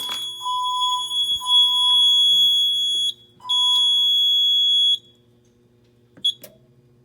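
Fire alarm system sounding a steady high-pitched tone with shorter, lower beeps under it. The tone breaks off briefly about three seconds in, resumes, and stops about five seconds in. A single short click-beep follows near the end.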